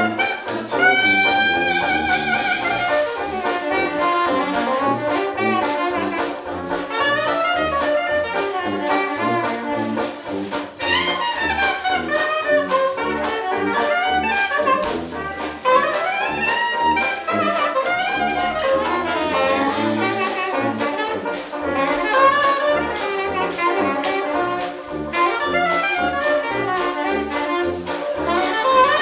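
Small New Orleans-style trad jazz band playing live. Clarinet leads over sousaphone bass, with banjo and washboard keeping a steady beat, and a trumpet joins in partway through.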